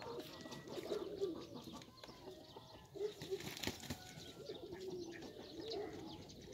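Faint, low cooing bird calls, repeating and wavering in pitch, with a single short knock about three and a half seconds in.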